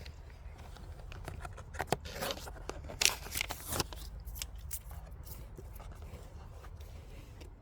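Packaging of a diecast model car being handled and opened by hand: a run of sharp clicks and short scrapes and crinkles, loudest about three seconds in, over a steady low rumble.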